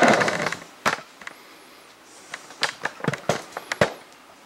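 CD cases being handled and set against a metal wire shelf: a brief rustle of handling, then a series of separate sharp clicks and taps, the loudest near the end.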